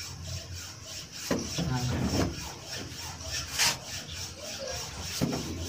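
Plastering tools scraping and rubbing on wet cement plaster: rough, irregular strokes, the loudest a little after three and a half seconds in.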